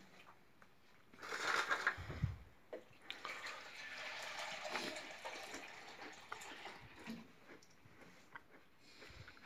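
Water poured from a plastic jerrycan into a small plastic mug. It starts with a louder gush and a low thump about a second in, then runs as a steady stream for about four seconds before tailing off.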